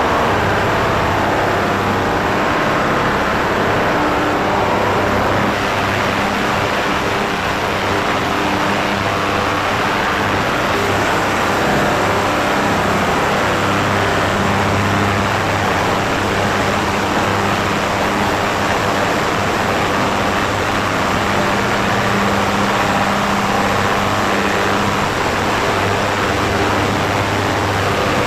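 Industrial ultrasonic cleaner running, its water-filled stainless tank giving a steady, loud noisy hiss over a low hum.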